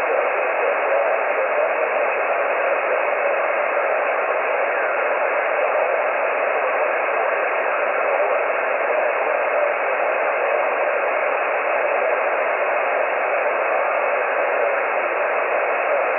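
Amateur HF transceiver on the 20-metre band (14.213 MHz), its sideband receiver giving a steady hiss of band noise with no clear voice coming through.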